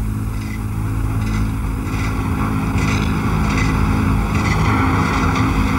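Engine noise running steadily, a low hum under a constant rushing noise.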